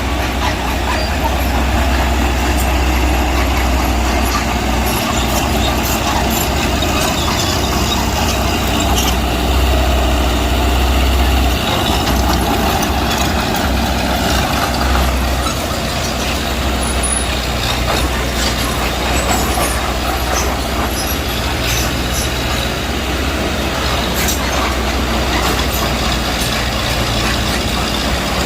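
Diesel engine of a small Mitsubishi BD2G bulldozer running steadily at work with a low rumble, with scattered metallic clanks and knocks.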